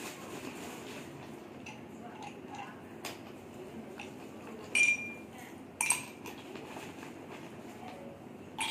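Dishes and glassware clinking: two sharp clinks about five and six seconds in, the first ringing briefly, with a few lighter knocks around them.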